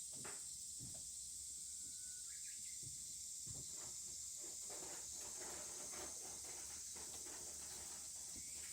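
Steady high-pitched insect chorus, with scattered soft crackles and knocks, most of them in the middle.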